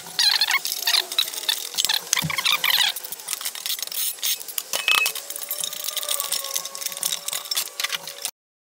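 Small steel bolts and hardware clinking and rattling against a sheet-steel box, busiest in the first three seconds, with a faint steady whine joining about five seconds in; the sound cuts off abruptly just before the end.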